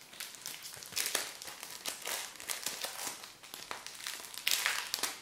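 Thin plastic film crinkling and crackling as it is handled in the fingers: a string of small, irregular crackles, a little louder about a second in and again near the end.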